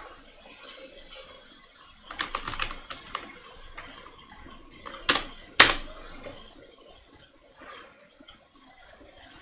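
Computer keyboard and mouse clicks. There is a quick run of key presses about two seconds in, then two louder clacks about half a second apart midway, with scattered single clicks around them.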